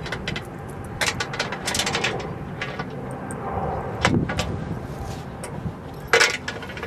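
Scattered clicks and taps from two leashed Siberian huskies moving around a water bowl on a wooden deck, with a cluster of clicks about a second in and a sharper sound about six seconds in.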